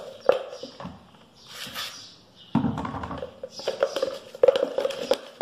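Spoon stirring and mashing a thick bokashi fertilizer paste in a plastic pot, with irregular taps and scrapes against the pot's sides. A dull thump comes about two and a half seconds in, and the tapping gets busier near the end.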